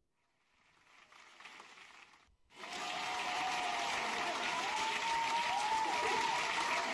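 Audience applauding, starting suddenly about two and a half seconds in after a faint, brief stretch of noise, with wavering cheers over the clapping.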